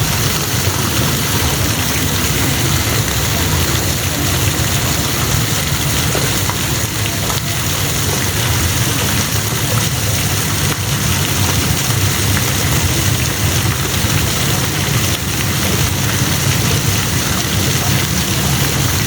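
Steady hiss of spraying and falling water, even throughout, with a low rumble underneath.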